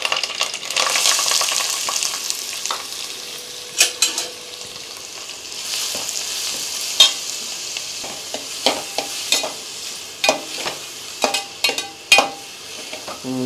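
Chopped onions frying in hot oil with fennel seeds and curry leaves in a stainless steel pot, with a steady sizzle. A steel spoon stirs them, scraping and clinking against the pot a dozen times from a few seconds in.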